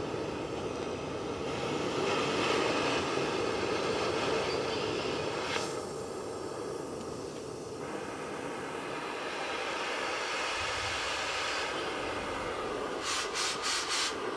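Oxy-acetylene cutting torch flame hissing steadily as it plays on a steel fence pipe. The hiss grows louder about a second and a half in, drops back for a few seconds around the middle, then rises again. A quick run of sharp ticks comes near the end.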